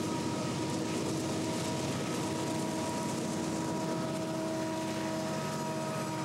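Conrail coal train passing close by: diesel locomotives go past, then a string of coal hopper cars rumbling and clicking along the rails. A steady whine with several tones holds throughout.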